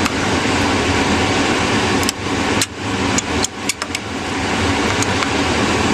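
A few sharp small clicks and taps from hard drive parts being handled with a tool during disassembly. They come in a cluster in the middle and once more near the end, over a steady background hum.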